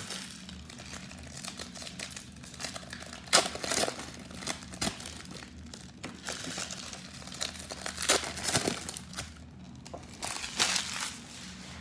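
Trading-card pack wrappers crinkling and cards being handled as a pack is opened and flipped through: a string of short, irregular rustles and crackles.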